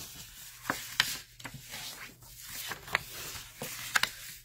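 Bone folder rubbed across scored cardstock, creasing and burnishing the folds: a dry papery scraping with a few sharp ticks of the paper.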